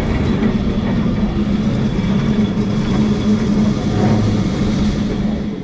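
Remodelado heritage tram running along the street, heard from on board: a steady rumble of wheels on rails with a steady low hum. It fades out near the end.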